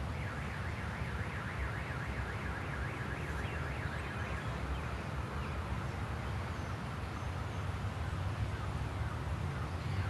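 A warbling electronic alarm, its pitch rising and falling several times a second, fading out about halfway through, over a steady low rumble.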